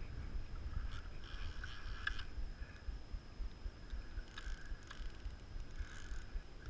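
Low rumble of wind on the microphone, with faint sloshing of shallow water and a few light rustles from a gloved hand gripping the fly rod.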